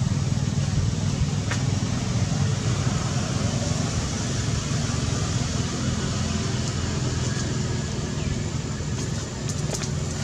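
Steady low background rumble, with a few faint clicks near the end.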